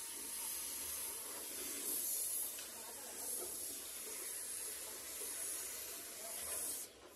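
Compressed-air paint spray gun hissing steadily as it sprays paint, with a short break in the hiss near the end.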